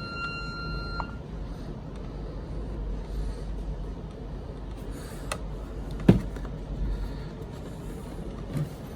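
Security alarm keypad giving one steady electronic beep of about a second as it powers up, then a few sharp clicks from handling, the loudest about six seconds in.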